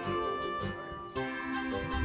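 Background music: sustained melodic notes over a regular beat.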